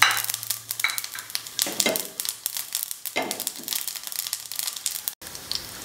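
Cumin seeds sizzling in hot oil in a frying pan: a crackle of small pops over a hiss. The popping is dense for about three seconds, then thins out, with a brief dropout about five seconds in.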